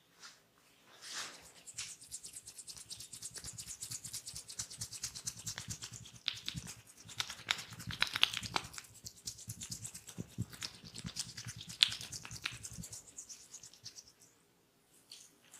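Fast, close-miked scratching with fine crackles. It runs in spurts, with one sharper click near the end, and stops about a second and a half before the end.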